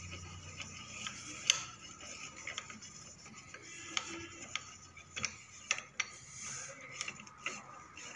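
Lathe cross-slide feed screw being wound out by its handwheel and pulled free of the slide: irregular metallic clicks and light rattles of the screw, handle and loose hardware.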